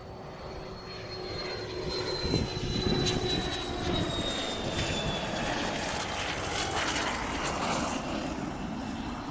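Drone of a passing engine, building up about two seconds in and holding, its tone slowly falling in pitch.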